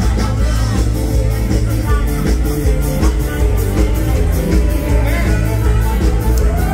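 Live mor lam band playing amplified music with a heavy bass and a steady drum beat, with singing over it.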